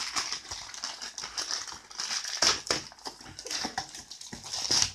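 Plastic mailing bag crinkling and rustling in short, irregular crackles as a boxed item is pulled out of it by hand.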